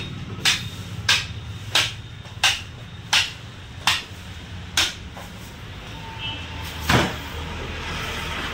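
A butcher's knife chopping down through the backbone of a hanging goat carcass to split it, a series of sharp chops about two every three seconds, then a single louder strike near the end, over a low steady hum.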